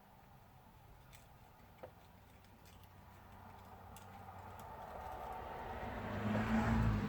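A vehicle passing by: a low hum and rushing noise that build over several seconds and are loudest near the end. A few faint light clicks come early on.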